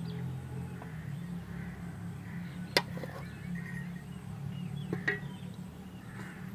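Two sharp clicks, about three seconds and five seconds in, of a metal spoon striking a cooking pot while rice is layered over chicken, over a steady low hum.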